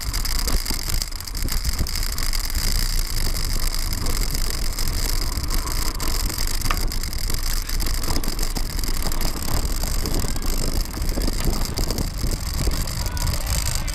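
Mountain bike riding over a dry dirt and gravel track: tyres rolling on the loose surface, with many small knocks and rattles from the bike over the bumps. Wind noise on the camera microphone runs through it.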